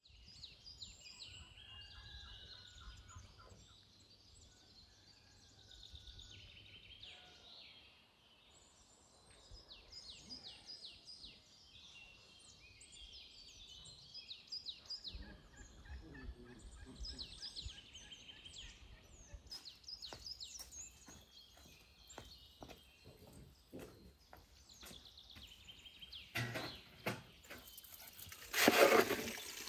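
Farmyard poultry calling in rapid repeated notes, with small birds chirping over them. Near the end comes a brief, louder rush of noise.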